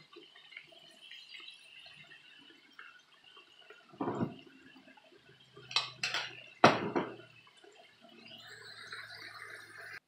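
Par-fried potato sticks sizzling in hot oil in a frying pan while a metal slotted skimmer lifts them out. The skimmer clanks and scrapes against the pan about four, six and seven seconds in, the one near seven seconds the loudest.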